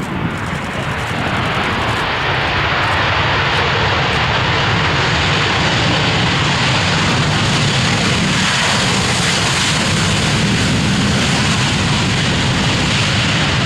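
Airliner's engines, a loud, steady rush that builds over the first couple of seconds, then holds as the plane passes close by.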